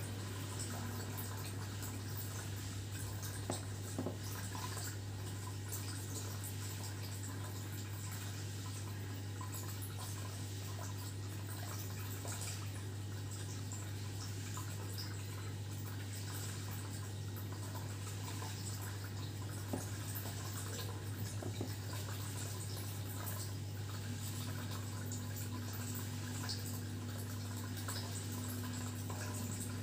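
Steady low electrical-sounding hum over a constant hiss of room noise, with a few faint clicks around three to four seconds in and again about twenty seconds in.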